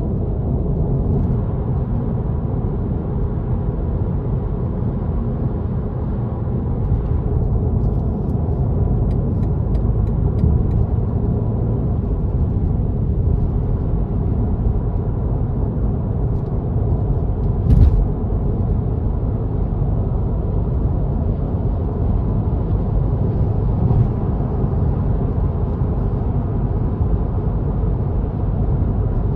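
Steady road and tyre noise with a low rumble from a car cruising on an expressway, with a single sharp thump about eighteen seconds in.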